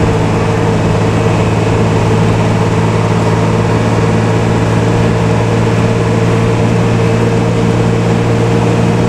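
Intercity bus engine running steadily, heard from inside the passenger cabin: an even, unchanging low drone with a fainter steady hum above it.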